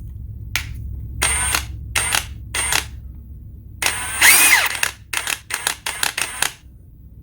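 Ridgid 18V High Torque cordless impact wrench spinning free in a series of short trigger pulls, with one longer pull about four seconds in that spins up and winds back down. The motor speed jumps rather than following the trigger smoothly, the sign of a choppy, non-progressive trigger.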